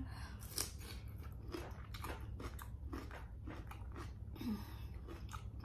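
Close-miked chewing of a crisp green vegetable stalk, a dense run of small crunching clicks, with a soft hum or two of enjoyment.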